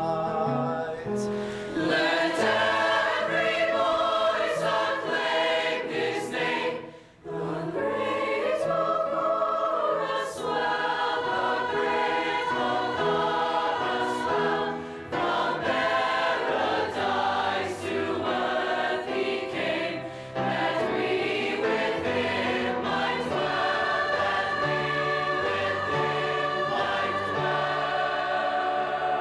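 Choir singing a Christmas carol in long, held chords, with a short break about seven seconds in.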